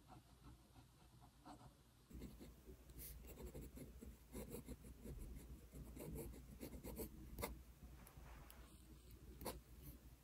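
Fountain pen nib scratching faintly across notebook paper in short handwriting strokes, with a few light ticks.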